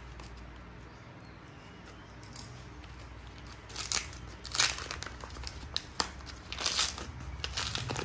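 Stiff wrapping paper crinkling and tearing as a small parcel is unwrapped by hand, in several short bursts in the second half.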